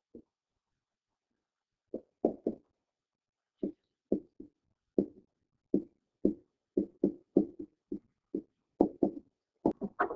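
Stylus tapping and knocking on a pen tablet during handwriting: short sharp knocks in quick, uneven groups, coming thicker toward the end.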